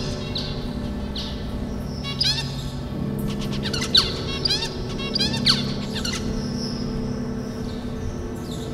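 Captive finches chirping, short high calls that bunch together between about two and six seconds in, over a steady low drone of held tones.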